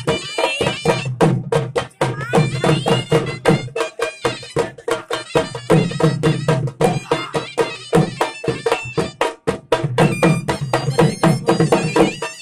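Dhol drum beaten in a fast, driving rhythm with a surnai, a shrill double-reed pipe, playing a melody over it that slides between notes: the traditional music of the Khattak dance.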